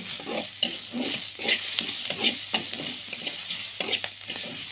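Metal spatula scraping and stirring onions, shallots and garlic frying in oil in a metal wok: a steady sizzle under quick, repeated scrapes of the spatula against the pan, about two to three a second.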